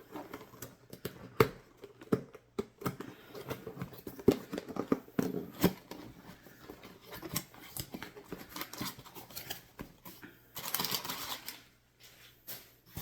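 Scissors snipping through cardboard packaging, a string of short sharp snips and clicks, then about eleven seconds in a brief rustle of packaging.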